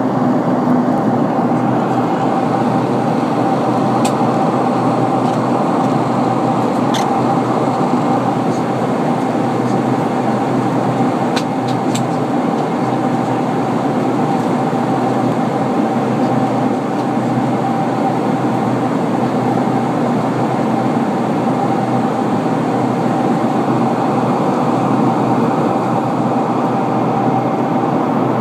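Steady in-cabin noise of a Boeing 747-400 in climb, from a seat over the wing: its Rolls-Royce RB211-524H engines and the airflow give a constant loud rush with a steady mid-pitched whine running through it. A few faint clicks are heard near the middle.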